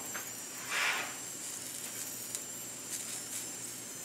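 Gas stove burner flame hissing steadily under an empty grate, with one brief soft rush of noise about a second in.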